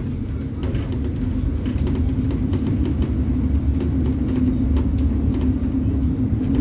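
Steady low rumble of a city bus's engine and tyres on the road, heard from inside the moving bus, with a constant droning hum.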